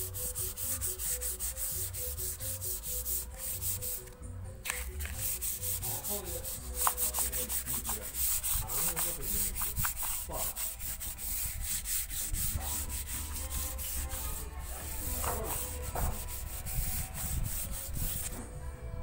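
Sandpaper rubbed on a wooden surface in quick, even back-and-forth strokes, as in hand-sanding a sealer-coated piece.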